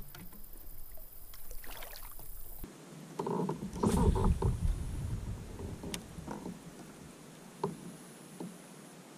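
Kayak on the river: water splashing around the hull and paddle with a few knocks, loudest from about three to five seconds in. The background changes abruptly a little under three seconds in.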